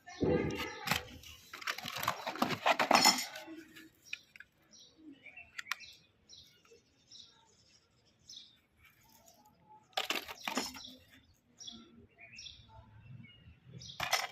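Short bird chirps repeating on and off, with bursts of clattering, rustling noise through the first three seconds and again briefly about ten seconds in.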